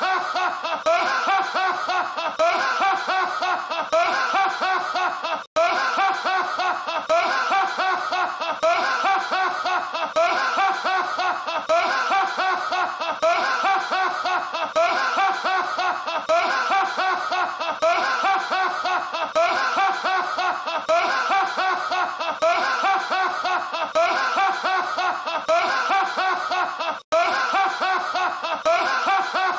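A man's big laugh, one loud 'ha-ha-ha' after another without a break, twice cut by a split-second silence where the looped clip restarts.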